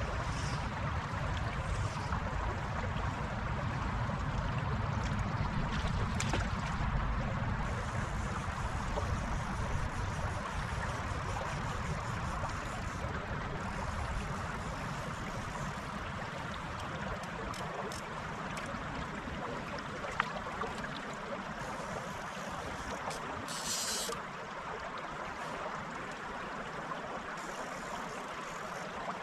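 Shallow stream flowing and rippling steadily, with a low rumble that eases off about halfway through and a brief high hiss a few seconds before the end.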